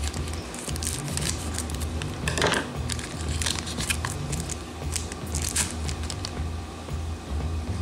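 Scissors snipping a foil trading-card booster pack, then the foil wrapper crinkling in short rustles as the pack is pulled open and the cards are drawn out. Background music with a low, steady bass runs underneath.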